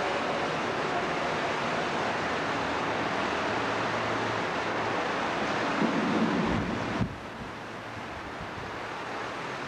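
Steady hiss of background noise on an old camcorder recording, with a few dull low thumps about six to seven seconds in, after which the hiss drops a little quieter.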